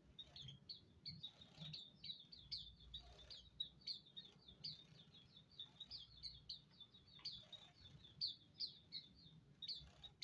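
A small group of Hume's white-eyes (Zosterops auriventer) chirping: short, high calls several times a second, overlapping without a break.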